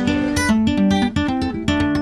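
Background music: an acoustic guitar playing a quick run of plucked chords and notes that change every fraction of a second.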